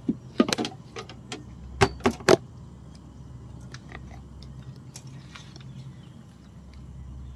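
Fishing tackle and catch being handled on a fibreglass boat deck: a few sharp clicks and knocks about half a second in and a louder cluster around two seconds in, then only faint scattered ticks, over a low steady rumble.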